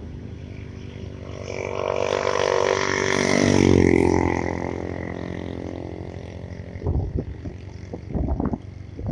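A motor vehicle's engine passing by: it grows louder to a peak about four seconds in, then fades away.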